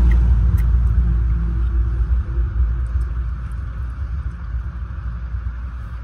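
Low vehicle rumble that fades steadily over a few seconds, with a few small clicks on top.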